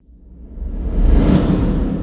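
Cinematic whoosh sound effect over a deep rumble, swelling up to a peak just after a second in and then slowly fading away.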